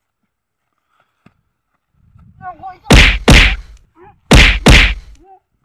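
Punch sound effects: four loud whacks in two quick pairs about a second apart, with short cries between them.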